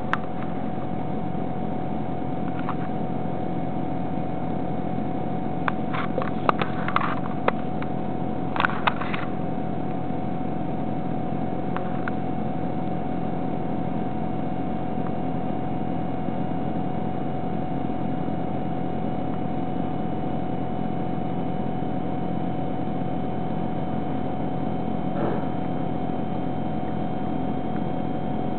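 Tabby cat chewing a blue tit, with a run of sharp crunching clicks about six to nine seconds in. A steady machine-like hum with a constant tone runs underneath.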